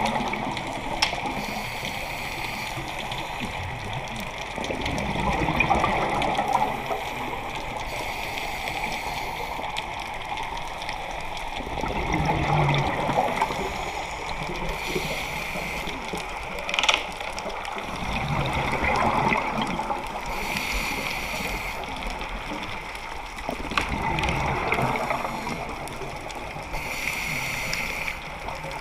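A scuba diver's regulator breathing, heard underwater: a short hiss on each inhale alternating with a longer rush of exhaled bubbles, about every six to seven seconds.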